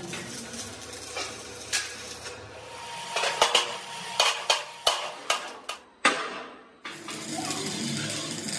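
Steel hand hammer striking a fabricated steel tractor front-axle beam at its kingpin boss: about a dozen sharp, ringing metal-on-metal blows, coming faster in the middle. Near the end, a steady crackle of stick (arc) welding.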